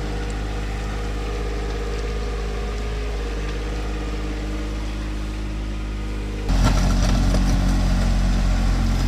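John Deere 1025R compact tractor's three-cylinder diesel engine running steadily as the tractor drags a rear blade over gravel. About six and a half seconds in, the sound jumps louder, with a rougher noise over the engine.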